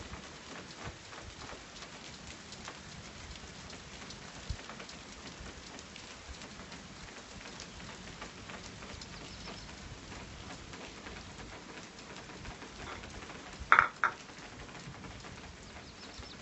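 Light rain falling, a steady hiss scattered with small drop ticks. About fourteen seconds in there are two short, sharp sounds close together, the loudest in the stretch.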